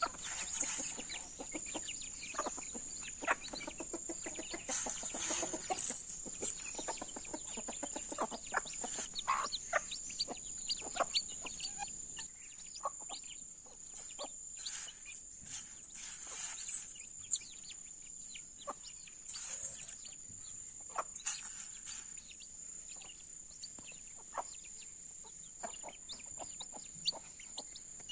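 Domestic chickens feeding: a hen clucking and her chicks peeping as they peck at scattered grain, in many short calls and clicks, busier in the first half. A steady high-pitched tone runs underneath.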